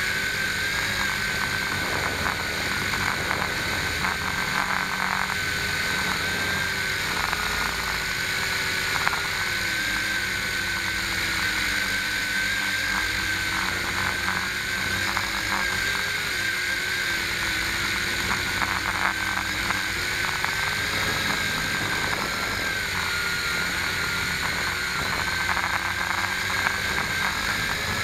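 Small camera drone's electric motors and propellers whining steadily, heard from the camera on board; the pitch wavers up and down as the drone holds and adjusts its position in a hover.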